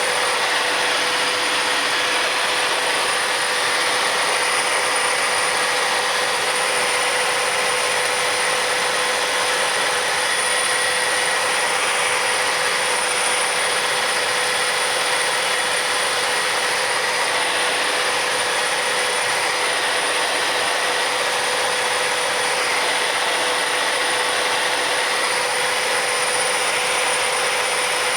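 Sikorsky S-58T helicopter in flight on approach: its twin-turbine powerplant and rotors running steadily, a continuous rushing noise with several constant high turbine whines over it.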